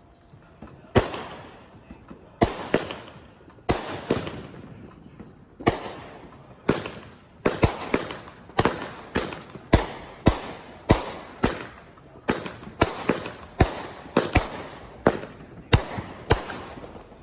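Consumer fireworks going off: a run of about thirty sharp bangs, each with a short echoing tail. They come every second or so at first, then faster, about two a second, from around seven seconds in.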